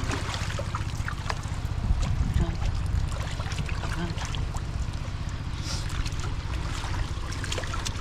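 Water trickling and splashing, with scattered small splashes and knocks over a steady low rumble.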